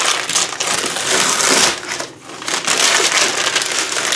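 Brown kraft-paper wrapping being torn and crumpled as it is pulled off a cardboard mailing box: a dense, loud rustling and tearing, with a brief lull about two seconds in.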